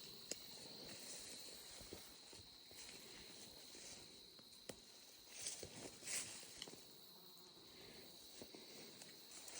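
Faint steady high-pitched trilling of insects, with a few soft rustles and clicks about halfway through.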